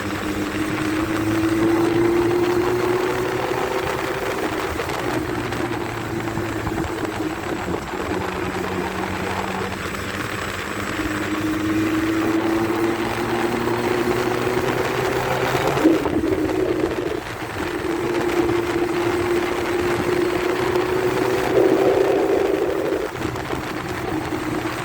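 A 600 cc motorcycle engine pulling through the gears: its note climbs slowly, drops back at a shift and climbs again three times, over a steady rush of wind. There is one sharp knock about two-thirds of the way through.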